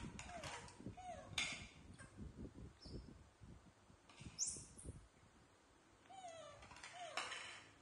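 Young macaques giving short squeaky calls and brief falling coos several times, over soft knocks of plastic plates being set on a tiled floor.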